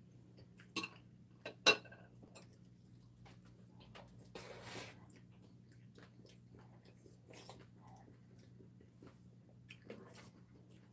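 Metal chopsticks clicking against plates and bowls while eating, with quiet chewing; the loudest clicks come in the first two seconds, and there is a short hissing rush about four seconds in. A steady low hum runs underneath.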